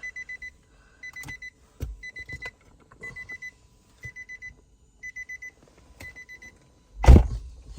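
Car's door-open warning chime beeping in quick bursts of about four high beeps, one burst each second. Near the end the car door slams shut with a loud thump.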